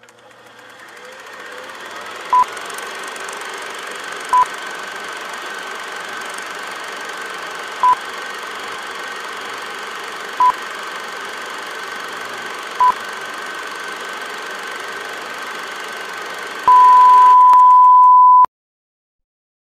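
Steady static hiss that fades in and holds, with a faint high tone inside it. Five short electronic beeps at uneven intervals, then one long beep of about two seconds, after which everything cuts off suddenly.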